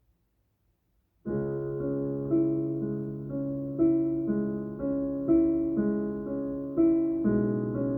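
Near silence, then about a second in, electric-piano-like keyboard music starts suddenly and plays on: a held low note under a slow, repeating melody.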